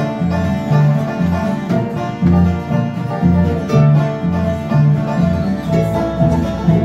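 Several acoustic guitars and other plucked string instruments playing a bluegrass-style tune together, with a steady, evenly stepping bass line under the melody.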